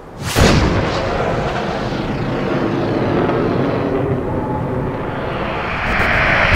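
A dramatic sound-effect track: a sudden loud impact a moment in, then a long, dense rumble that keeps going and grows brighter and louder near the end.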